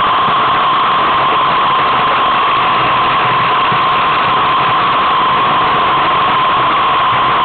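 Steady, loud rushing noise with a constant mid-pitched hum running through it: wind and tyre noise picked up by a camera riding on a moving road bicycle.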